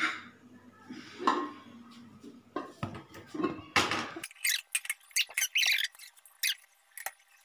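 Aluminium pressure cooker and metal pots clanking as the cooker is lifted from a pot rack and set on a gas stove, then a run of short, high-pitched metallic squeaks and scrapes in the second half.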